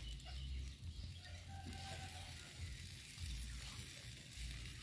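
Faint sizzling of whole fish grilling in a wire basket over hot charcoal, over a low rumble.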